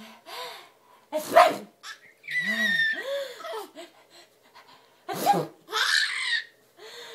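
A woman sneezes twice, about a second in and again about five seconds in, and each time a baby answers with a run of high-pitched giggling laughter.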